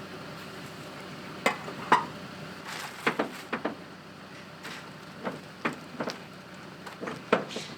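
Irregular sharp clicks and light knocks of metal parts and tools being handled while a heater mounting plate is fitted, about a dozen, loudest near the start. Under them is a steady hiss of rain.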